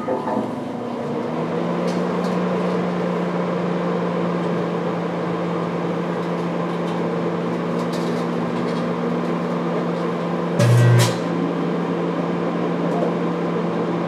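Microwave oven running with a steady hum. About ten and a half seconds in, a loud buzzing crackle lasts about half a second as carbonized cooking residue in the chamber arcs and sparks.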